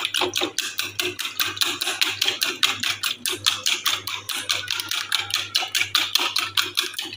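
Wire whisk beating raw eggs in a bowl, its wires clicking against the bowl in a fast, even rhythm of about six strokes a second.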